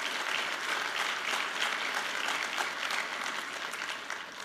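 Audience applauding, a steady clatter of many hands that dies away near the end.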